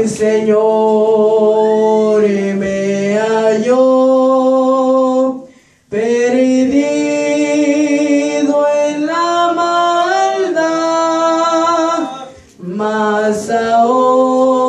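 A boy singing a Spanish hymn of praise unaccompanied into a handheld microphone, holding long notes, with two brief pauses for breath.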